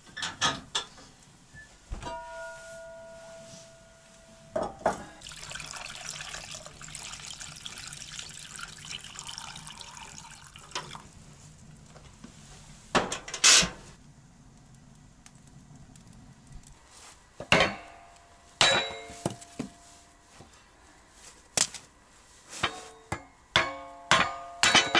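Metal pots clanking against a cast-iron wood stove, one giving a short ringing tone. Then liquid is poured into a pot for several seconds, and near the end comes a run of sharp metallic knocks that ring briefly.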